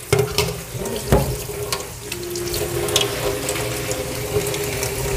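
Kitchen faucet running water into a stainless steel sink, with a few sharp knocks as things are handled in the sink during the first seconds.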